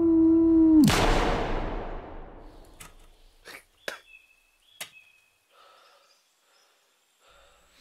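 A held electronic tone cuts off, and about a second in a single gunshot cracks, its echo dying away over about two seconds. A few faint clicks and short high chirps follow in the quiet.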